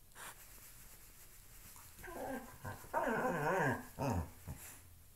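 Dog vocalizing in play while mouthing a shoe: a wavering, whine-like pitched call starting about two seconds in and lasting about two and a half seconds, sliding down in pitch near the end.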